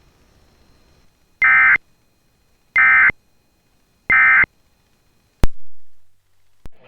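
Emergency Alert System end-of-message (EOM) signal: three short bursts of the screechy digital data tone, evenly spaced, closing the severe thunderstorm warning. About five and a half seconds in comes a sharp loud click that fades away, and a smaller click follows near the end.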